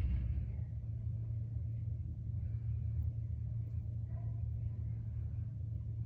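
Steady low hum of room background noise.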